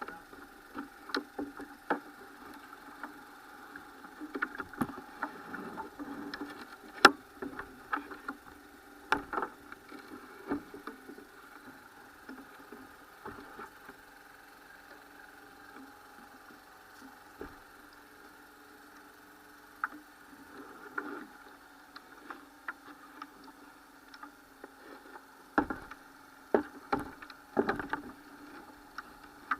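Boat being put into the water: scattered knocks and bumps of the hull and gear being handled, the loudest about seven seconds in and a cluster near the end, over a steady droning hum.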